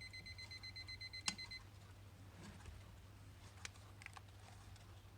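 Quartz alarm clock's electronic alarm beeping, a high, fast-pulsing beep that stops about a second and a half in, just after a sharp click. After that come only a few faint clicks.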